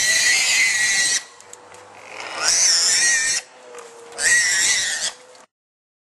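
Three loud, harsh, high-pitched animal squeals, each about a second long, over a faint steady hum.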